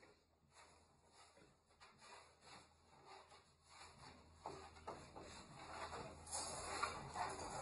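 Faint, irregular rubbing and sniffing of two dogs nosing at each other through the bars of a wire dog crate, growing a little louder in the second half.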